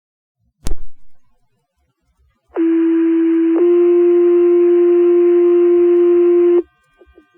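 Two-tone sequential pager alert over fire dispatch radio: a steady one-second tone switching straight into a second, different steady tone held about three seconds, which sets off the volunteer fire station's pagers. A short click of the radio keying up comes just before.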